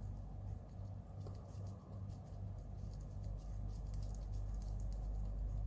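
Faint, scattered small clicks and scrapes of hand-assembling the plastic and metal parts of a Mini 4WD model car, a part being twisted into place, over a steady low hum.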